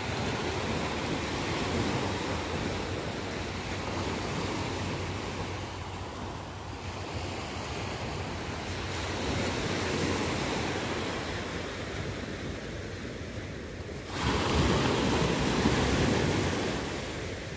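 Sea surf at a rising tide: waves breaking and washing in close, a steady rushing that swells and ebbs. It turns suddenly louder for a few seconds near the end.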